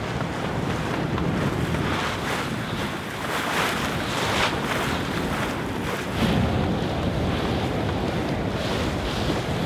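Wind buffeting the microphone over the rush of water and waves along the hull of a Najad 440 sailboat moving under sail through choppy sea.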